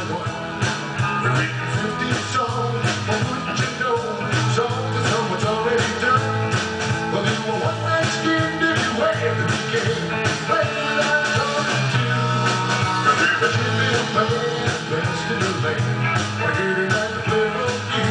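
Live rock-and-roll band playing: electric guitars, bass guitar and drums with a steady beat.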